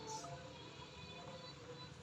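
Faint music playing under low ambient background noise, with a brief soft hiss just after the start.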